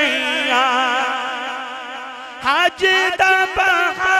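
A man singing a Punjabi verse in a slow, ornamented melody: one long wavering held note that slowly fades, then about halfway through a new phrase that opens with quick rising slides.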